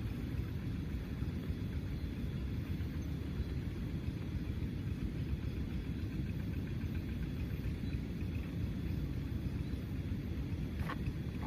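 Steady low rumble with no clear pitch, with one faint click near the end.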